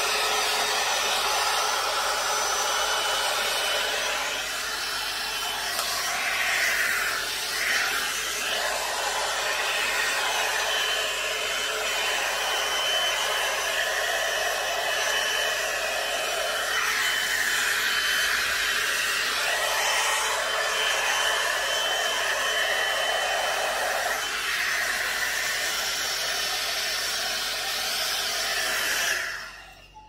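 A one-step hot air brush, a copy of the Revlon One-Step dryer and volumizer, blows steadily as it is worked through hair. Its tone shifts now and then, and it switches off near the end.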